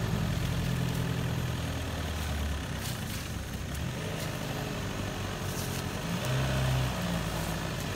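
Off-road vehicle engine running with a low, steady drone; its pitch shifts about two and a half seconds in and rises again around six seconds.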